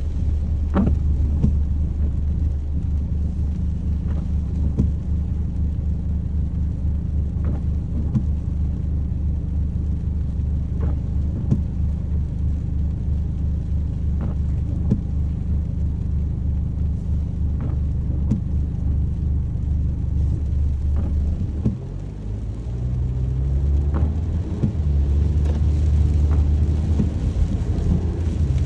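Steady low rumble of a motor vehicle's engine, with faint scattered ticks over it. About two-thirds of the way through it drops off briefly, then comes back and climbs in pitch in steps.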